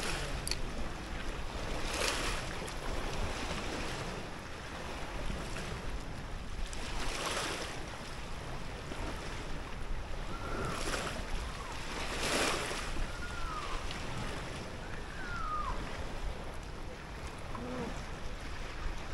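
Steady rushing wind and water noise, swelling every few seconds, with a few faint falling whistles partway through.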